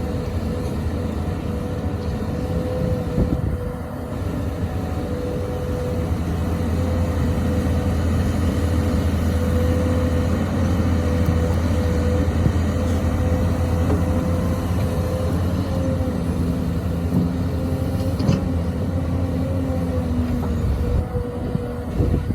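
XCMG XE215C excavator's diesel engine running steadily under working load, with a steady whine over the low engine rumble and a few short knocks.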